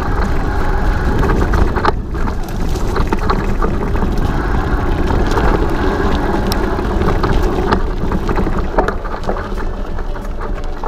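Mountain bike rolling along a dirt trail: steady wind rumble on the microphone and tyre noise, with frequent small clicks and rattles from the bike over bumps.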